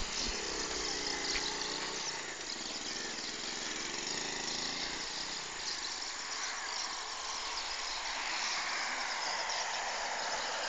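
A vehicle engine running, its pitch wavering up and down for the first few seconds and then fading; a higher wavering engine drone comes up near the end. Steady high insect chirring runs underneath.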